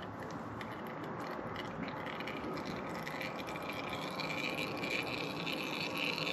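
Engine oil draining from a Triumph Daytona 765 motorcycle into a drain pan, a steady pouring trickle of liquid.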